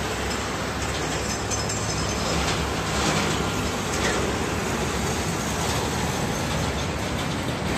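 Heavy diesel trucks driving past on a multi-lane highway: a steady drone of engines and tyre noise, swelling slightly about three seconds in.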